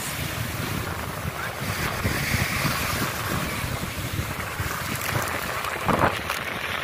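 Surf washing up a sandy beach, small waves breaking and foaming, with wind buffeting the microphone as a low rumble. A louder rush of surf comes near the end.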